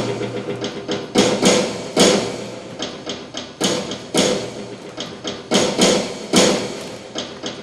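Sharp knocking strikes in an irregular rhythm, hammer-like: a few loud blows about half a second to a second and a half apart among lighter taps, over a faint sustained ringing tone.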